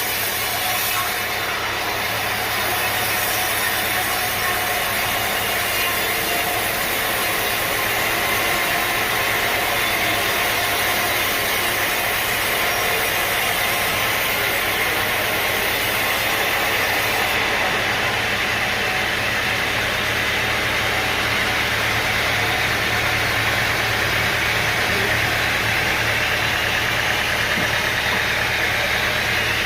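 Engine-driven sawmill machinery running steadily, a continuous mechanical hum with a hiss over it.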